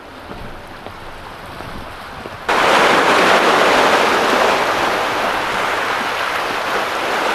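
Waves breaking and foaming over shoreline rocks, a loud steady wash that starts abruptly about two and a half seconds in; before that only a quieter outdoor hiss.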